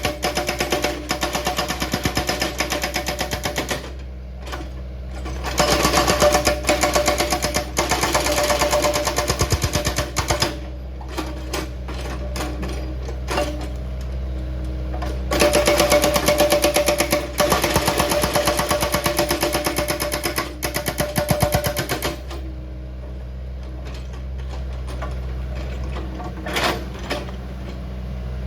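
Excavator-mounted hydraulic rock breaker hammering rock in several bursts of rapid blows a few seconds long, with short pauses between, over the excavator's diesel engine running steadily.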